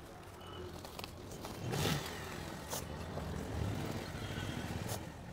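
Sawdust being scooped and poured into a sack, with a few scrapes and knocks and a louder rush of sawdust just before two seconds in, over a steady low rumble.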